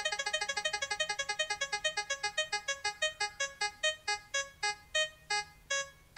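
Cartoon spinning-wheel sound effect: a rapid run of short electronic beeps that slows steadily, from about nine a second to about two, as the spinner comes to rest.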